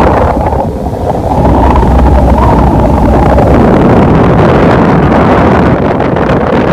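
Loud, steady wind noise on the microphone of a moving passenger boat, over the low rumble of the AquaLink II under way, with a brief lull about a second in.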